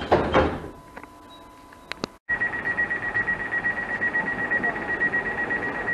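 Electric train doors slam shut with a heavy thud at the start. About two seconds in, an SKM 31WE (Newag Impuls) electric unit's door-closing warning begins: a high, fast-pulsing beep that keeps sounding while the doors are still open.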